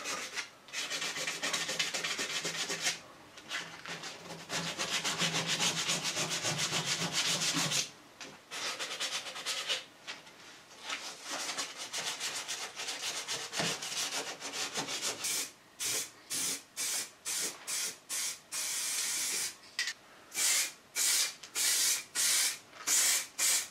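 Hand sanding the edge of fresh primer on a car body repair with wet-and-dry abrasive paper, feathering it in. It starts as quick, continuous back-and-forth rubbing, then after about fifteen seconds becomes slower separate strokes, roughly two a second.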